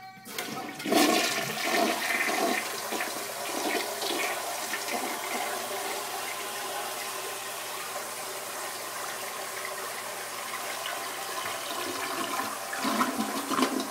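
Toilet flushing: water rushes into the bowl suddenly about half a second in, swirls and drains with a steady rushing sound, and grows louder again near the end.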